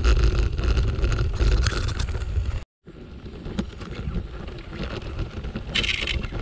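Wind noise on a bicycle-mounted camera's microphone, with the bike's tyres rolling over a gravel forest path. The sound drops out for a moment about two and a half seconds in, then comes back quieter as the bike rolls along a dirt trail, with a short hiss near the end.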